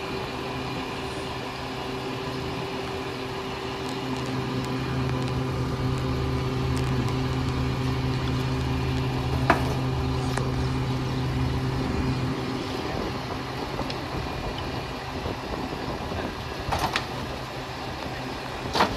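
Diesel engine of a Pak-Mor rear-loader garbage truck running steadily. It runs harder for several seconds in the middle, as it does when the hydraulic packer cycles, then settles back. A few sharp clunks of debris come through, the loudest near the end.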